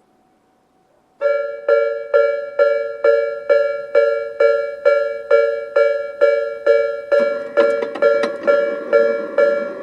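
Electronic warning bell of a Tobu Railway level crossing (the 'Tobu sound B' type) starts up about a second in, ringing a two-note ding at a steady rate of a little over two strikes a second. Late on, a rushing noise with a few sharp clicks joins it.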